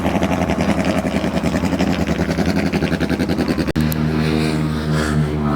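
Speedboat engine running loud with a fast, even pulsing beat. About two-thirds of the way in it breaks off suddenly into a steadier, even drone.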